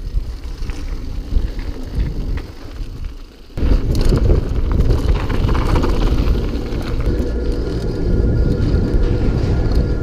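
Mountain bike riding noise on a handlebar-mounted action camera: wind buffeting the microphone and the tyres rumbling over a gravel trail, with scattered rattles and clicks from the bike. It dips briefly and then gets louder about three and a half seconds in.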